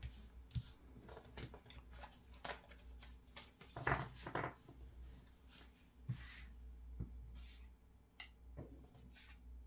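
Tarot cards being handled: a fanned deck is drawn from, and cards are slid out and laid down on a cloth-covered table, giving soft, scattered flicks, taps and rustles.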